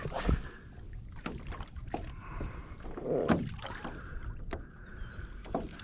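Choppy sea water slapping and lapping against a kayak's hull, with wind on the microphone and scattered small knocks and clicks; one louder slap comes about three seconds in.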